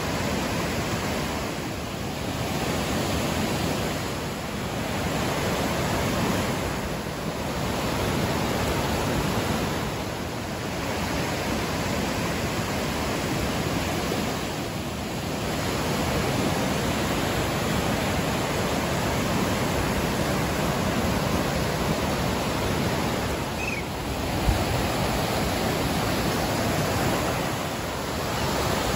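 Fast mountain river rushing over boulders in white-water rapids: a steady, loud wash of water noise that swells and eases slightly every few seconds. One brief knock sounds about twenty-four seconds in.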